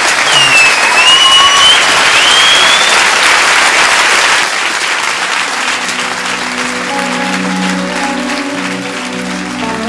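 Audience clapping, loudest in the first few seconds with a couple of sliding whistles over it. About halfway through the applause dies down and music fades in under it.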